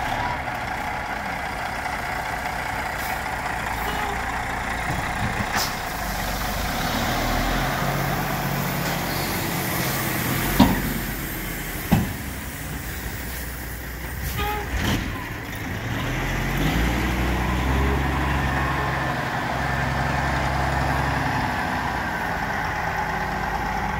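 Heavy diesel dump truck running with its bed raised while it dumps and spreads a load of gravel rock, with the rock sliding and rattling out of the bed. The engine rises in pitch twice as the truck pulls forward, and there are two sharp bangs about a second apart near the middle.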